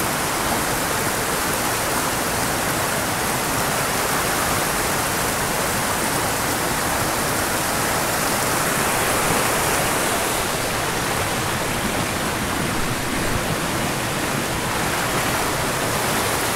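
Steady, unbroken rush of fast-flowing stream water.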